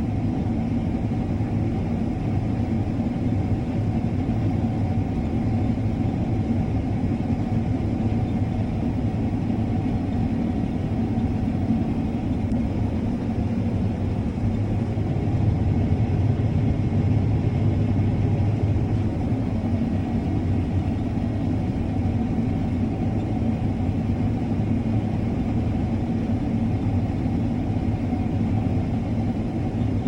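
Combine harvester running steadily while cutting wheat with a draper header, a continuous low machine drone with a steady hum. It swells slightly about halfway through.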